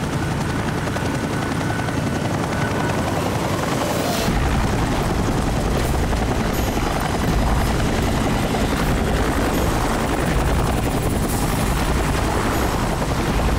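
Helicopter flying low, its rotor and engine running steadily. The low end gets louder about four seconds in.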